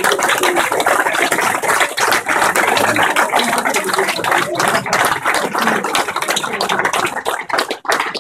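Crowd applauding: dense, rapid clapping that thins into scattered claps near the end.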